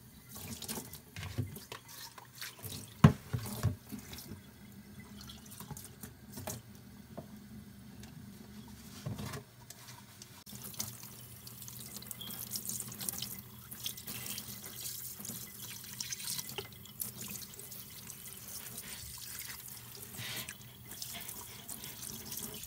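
Tap water running into a stainless steel sink as fish is rinsed by hand, with splashing and dripping. A few knocks in the first half, one sharp and loud about three seconds in; from about ten seconds in the water runs steadier and fuller.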